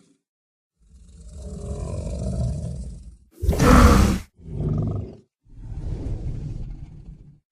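A string of four monster roar sound effects for a sharkgator, a shark-alligator creature, with short gaps between them: a swelling roar, then a very loud harsh one about three and a half seconds in, a brief one right after it, and a longer one near the end.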